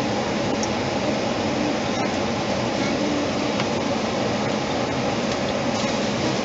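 Steady road and wind noise inside a moving car's cabin: an even, unbroken rush with a few faint ticks.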